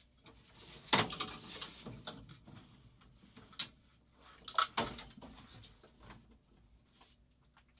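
Workbench handling noises: a few sharp knocks and clatters as tools and small parts are picked up and set down, the loudest about a second in and a cluster a little before the five-second mark.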